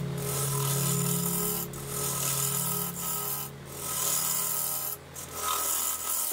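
Bowl gouge cutting into a spinning sycamore bowl blank on a wood lathe: a steady rasping hiss of shavings being peeled off, breaking off briefly about three times as the tool eases off, over the lathe's low hum.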